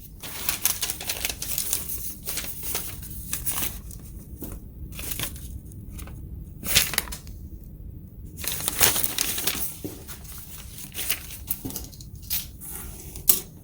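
Paper and cardboard packaging being handled: a run of crinkling and rustling with scattered sharper crackles.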